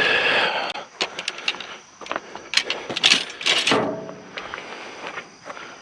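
Clattering and knocking of junk being pulled from and dropped on a scrap pile: a run of sharp knocks, with a louder clatter about three seconds in.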